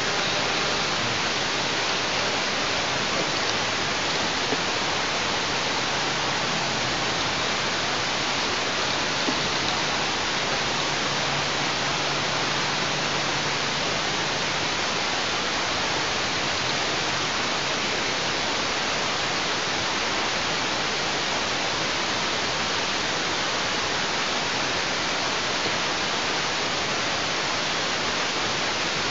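Steady, even hiss of noise with no distinct events, holding one level throughout.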